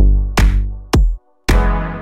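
Background electronic dance music with a drum-machine beat and deep bass, about two beats a second, with a short break a little past the middle.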